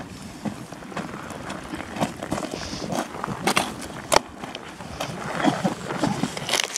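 Irregular crunching footsteps and knocks on loose volcanic rock and sulfur crust, over a steady hiss of fumes from the sulfur vents.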